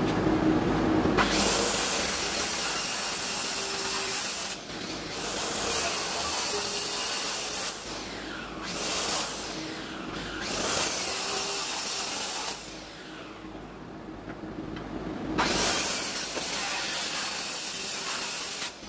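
Circular saw cutting through a particleboard countertop in four separate cuts, each a few seconds long. Between cuts the motor winds down in a falling whine.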